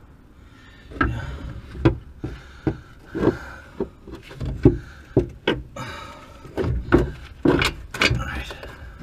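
Irregular knocks and clanks, about a dozen short sharp ones, as parts of a car's rear suspension and drive shaft are handled and worked into place by hand.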